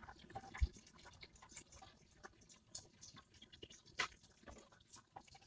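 Faint soft handling sounds of hands laying a rolled pie crust over a glass baking dish and patting it down, with a small low knock about half a second in and a short sharp tap about four seconds in.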